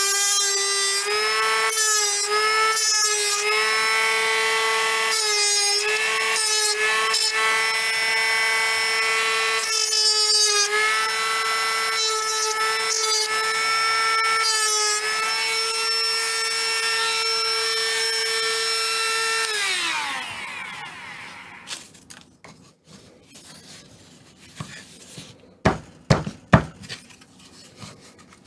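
Small high-speed handheld rotary tool running steadily as it grinds the edge of an eye opening in a rigid tube, its whine dipping briefly in pitch several times as the bit bears on the work. About twenty seconds in it is switched off and winds down, followed by a few light clicks and taps.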